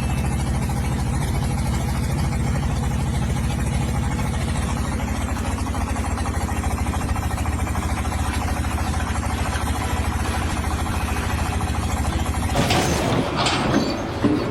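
An engine running steadily at an even, idle-like speed, then a different, noisier sound takes over for the last couple of seconds.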